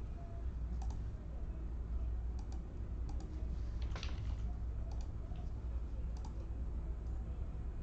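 Scattered sharp clicks, about half a dozen, some in quick pairs, the loudest about four seconds in, over a steady low hum.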